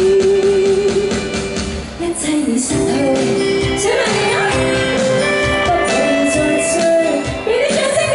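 A woman singing a Cantopop song live into a microphone over pop backing music, holding a long note at the start.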